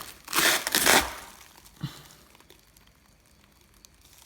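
A short burst of crinkling and rustling, like plastic being handled, loudest in the first second, followed by a faint click near two seconds and then quiet.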